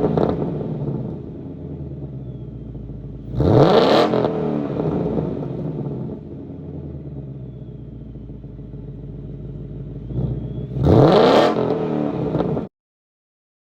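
2020 Mustang GT's 5.0 V8 idling through its stock active exhaust, blipped twice to a quick rev that rises and falls, once about three and a half seconds in and again near the end; the sound cuts off abruptly about a second before the end.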